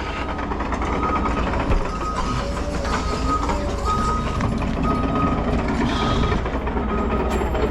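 A heavy machine's backup alarm beeping steadily, a bit more than once a second, over the low rumble of a running diesel engine.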